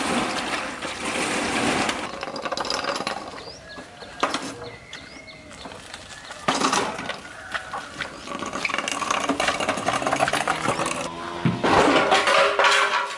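Water from a hose splashing into a plastic basin and onto wet concrete. It then gives way to scattered clicks, knocks and rattles from a motorcycle being wheeled along by hand, loudest near the end.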